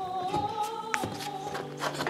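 Background music of slow, held notes, with a single light click about a second in.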